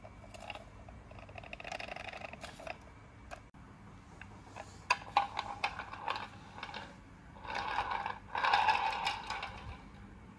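Small plywood board riding on steel ball bearings, pushed across a tile floor: clicks as it is set down, then a rolling rattle in two louder runs before it stops near the end.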